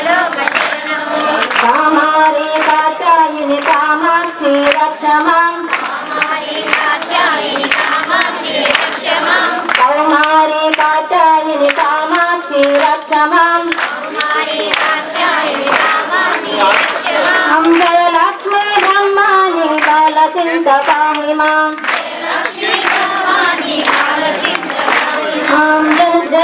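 A group of women singing a devotional song together, with one voice on a microphone, accompanied by rhythmic hand-clapping in time with the song.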